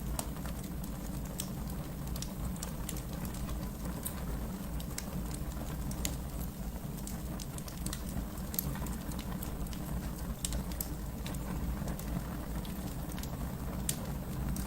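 Wood fire burning in a fireplace: a steady low rumble of flames with many small crackles and pops scattered irregularly throughout.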